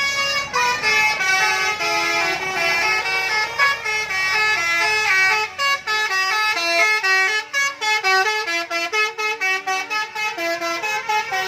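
Bus 'telolet basuri' multi-tone musical horn playing a tune in stepped notes, several pitches at once. In the second half it switches to short quick notes, about three a second.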